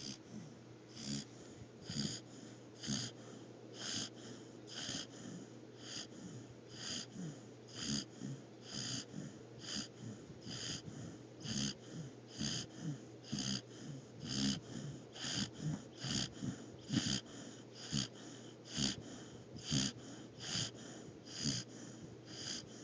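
Australian Shepherd puppy snoring in its sleep: quick, regular wheezy breaths, about one a second, each with a light whistle and a low rasp.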